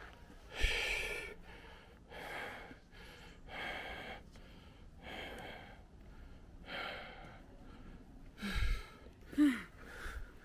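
A person breathing heavily while walking, a loud breath about every second and a half, with a short voiced sound falling in pitch near the end.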